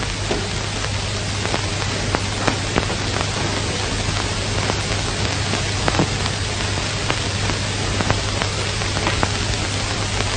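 Steady hiss with scattered crackles and a low hum: the surface noise of an old film soundtrack, with no speech or clear music.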